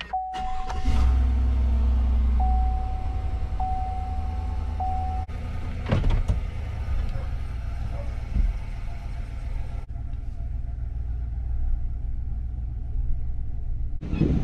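A steady low rumble, with a thin steady tone for about the first five seconds, broken a few times.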